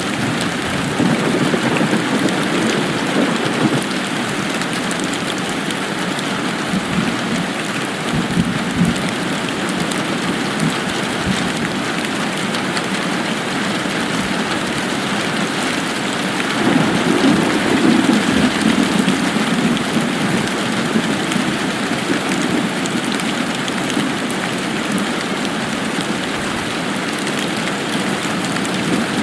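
Steady heavy rain falling and pattering on surfaces, swelling a little about two thirds of the way through.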